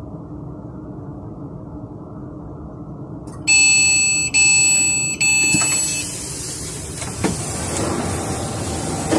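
Train carriage humming quietly while standing at a platform, then three loud beeps from the door warning about three and a half seconds in, followed by the sliding door opening with a rush of outside noise.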